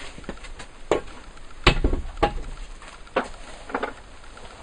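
A handful of separate knocks and clunks as hand tools are put down and picked up on a workbench. The loudest, a heavier thump, comes about a third of the way in.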